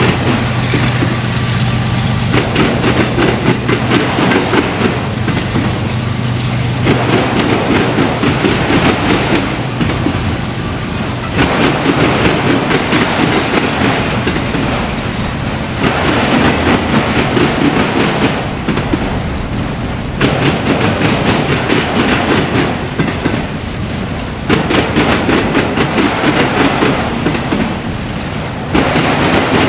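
Freight train rolling past, car after car, with wheels clattering over the rails. The sound shifts every four to five seconds as each car goes by. A steady low hum fades out about ten seconds in.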